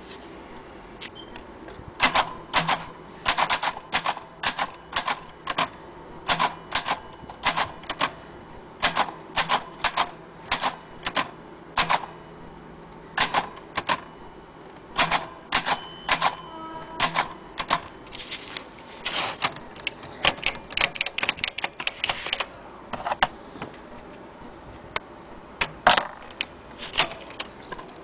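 Vintage Olympia typewriter being typed on: irregular, sharp clacks of the typebars striking, at times in quick runs.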